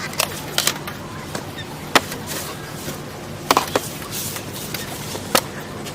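A handful of light, sharp knocks and clicks at irregular intervals, typical of handling camp cooking gear and utensils, over a steady low hum.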